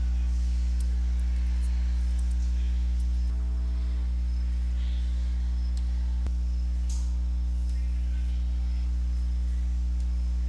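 Steady electrical mains hum with a stack of overtones, dropping slightly in level about three seconds in.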